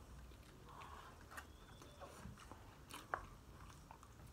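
Faint chewing and biting on crunchy Mexican food, with scattered small crackles and mouth clicks.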